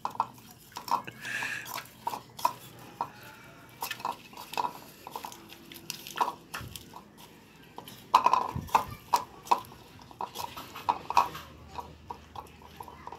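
A dog crunching and chewing lettuce leaves from a bowl, in quick irregular bites, loudest about eight seconds in.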